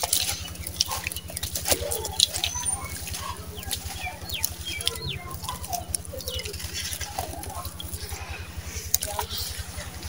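A wet sand-cement block crumbling and breaking apart in bare hands over a steel tub of water: a dense gritty crackle with squishes and small splashes as lumps drop in. A steady low hum runs underneath.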